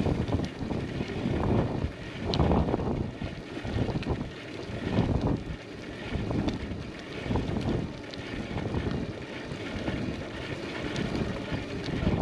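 Wind noise on the microphone of a moving bicycle, rising and falling in irregular gusts, over the rolling noise of tyres on asphalt.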